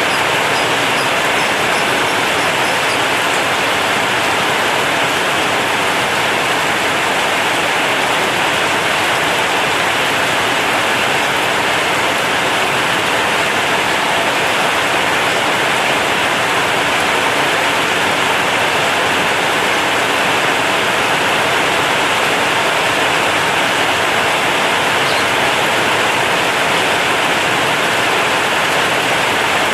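Heavy rain falling steadily on a corrugated zinc roof: a dense, even hiss with no let-up.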